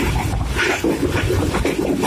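Passenger train running at speed, heard from a carriage window: a steady low rumble of wheels on the track with rushing noise and irregular knocks and rattles.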